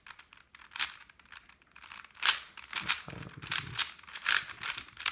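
A 4x4x4 Rubik's cube being turned by hand to solve a last-layer (PLL) case: a run of quick, irregularly spaced plastic clicks and clacks as the layers are twisted.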